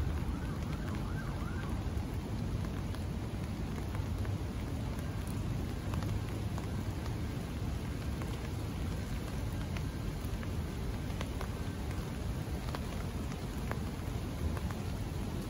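Rain falling, with scattered drops ticking sharply on an umbrella propped over the microphone, over a steady low rumble.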